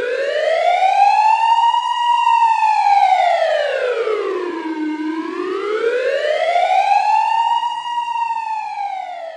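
Civil-defense siren wailing as an emergency alert signal, its pitch slowly rising and falling: it climbs to a peak about two seconds in, sinks low around the middle, climbs to a second peak near the end and starts falling again.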